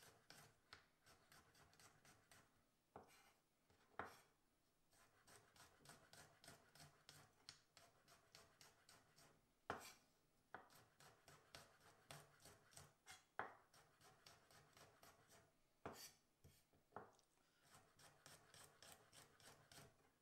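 Chef's knife slicing garlic cloves on a wooden cutting board: a run of quick, light knocks of the blade on the board, several a second, with a few louder knocks now and then.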